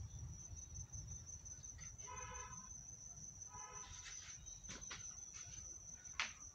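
Faint outdoor ambience: a steady high-pitched insect drone, with two short honk-like tones about two seconds in and again a second and a half later, and a few sharp clicks, the loudest near the end.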